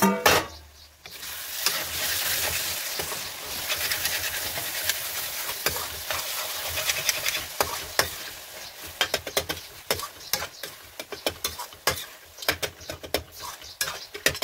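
Ridge gourd (turai) curry sizzling in a metal kadai while a metal spatula stirs it, scraping and clicking against the pan, the clicks coming thicker in the second half. A short loud metallic clang opens it as the pan's lid comes off.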